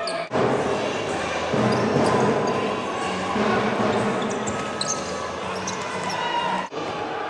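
Live basketball game sound in a sports hall: a steady din of crowd voices and shouting, with the ball bouncing on the court.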